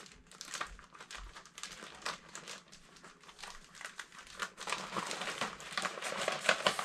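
Packaging crinkling and rustling as transfer sheets are pulled out of a box by hand, a string of irregular crackles that gets busier and louder in the second half.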